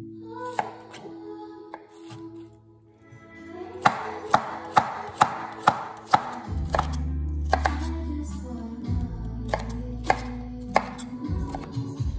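Chef's knife chopping celery and carrot on a bamboo cutting board: sharp knocks of the blade on the board, a quick run of about two strokes a second through the middle and a few single cuts later, over background music.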